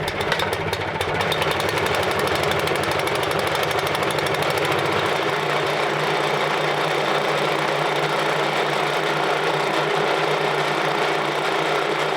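The gas engine of a portable sawmill running steadily at speed, with a fast, even pulsing.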